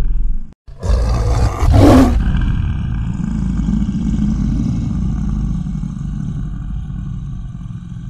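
Logo-reveal sound effect: a loud sound breaks off briefly, then a rushing burst swells about a second in and peaks near two seconds. It gives way to a long, low lion roar that slowly fades away.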